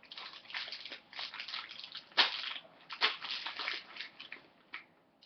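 Crinkling and rustling of plastic packaging being handled, irregular, with sharper crackles about two and three seconds in, dying away near the end.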